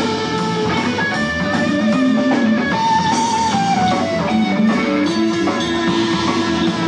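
Rock band playing electric guitars over a drum kit, with a held note that slides down in pitch about three seconds in.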